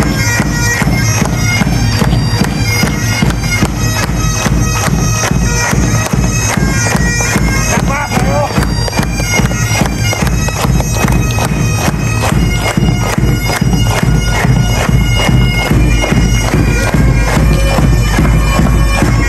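Pipe band playing a march: bagpipes over their steady drone, with a regular drum beat.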